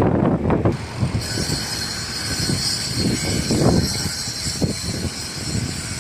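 Wind buffeting the microphone in irregular gusts, joined about a second in by a steady high-pitched hiss.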